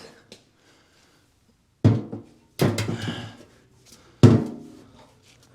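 Three heavy thunks, each ringing out briefly, as the removed fuel tank is set down and handled.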